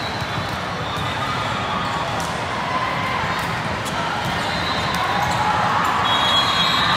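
Large sports hall din during indoor volleyball play: steady crowd chatter from spectators and players on many courts, with scattered sharp thuds of volleyballs being hit and bouncing on the hard court floor.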